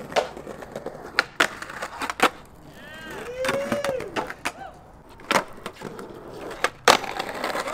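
Skateboard being ridden on a concrete ledge: wheels rolling, with repeated sharp clacks of the deck popping and landing. About three seconds in, a squeal rises and falls in pitch as the board slides along the ledge.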